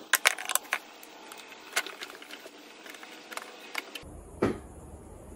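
Wooden support blocks and the aluminium case of a TR6060 six-speed transmission being handled and moved: a few sharp knocks and clatters in the first two seconds, then a single knock a little after the midpoint.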